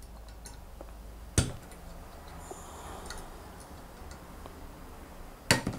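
Allen key working the build-plate screws of a Phrozen Mini 8KS resin printer, loosening them: faint metal ticks, with a sharp click about a second and a half in and a louder double click near the end.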